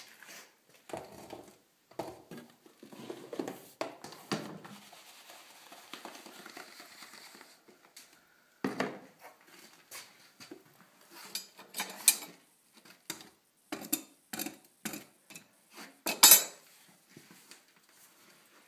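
Metal tools and pots clinking, knocking and scraping around a wood-fired bread oven. There is a stretch of scraping a few seconds in and one loud clank about sixteen seconds in.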